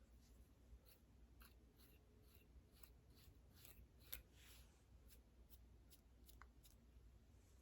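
Fingernails scratching a flaky, dandruff-covered scalp: faint, quick scratching strokes, about two or three a second, with one louder stroke about four seconds in.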